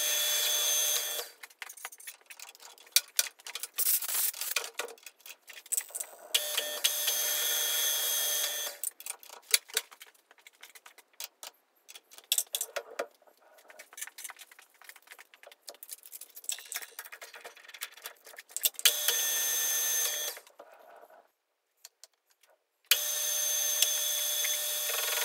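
A small combination lathe-mill runs in short spells with a steady whine. Between the spells, steel tools clink and tap as a spanner loosens the lathe's tool post and the cutting tool is swapped for a parting tool.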